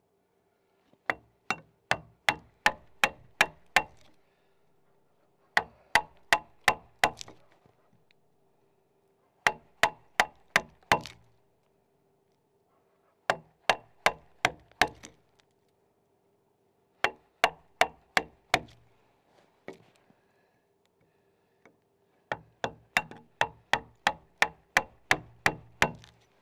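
An axe, held short near its head, chopping out a cog notch in a log: sharp blows into the wood in six quick runs of about seven to twelve strikes each, with short pauses between the runs.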